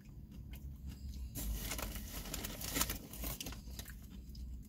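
Crunchy potato chips being eaten, with the foil chip bag crinkling: a run of short, crackly crunches, thickest in the middle.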